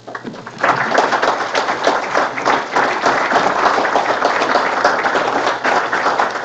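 Audience applauding, a crowd of many hands clapping, starting about half a second in and continuing steadily.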